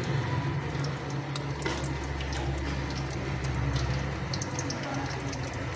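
Sliced onions sizzling in hot oil in an aluminium pot, the start of frying them golden, with fine crackles over a steady low hum.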